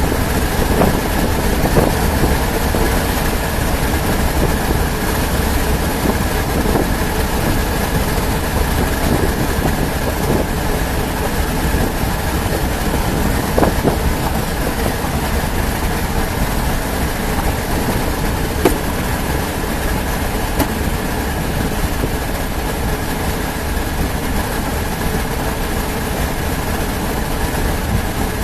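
Steady vehicle noise, a low rumble of engine and road with a faint steady tone over it, heard from inside a moving car, with a few light clicks.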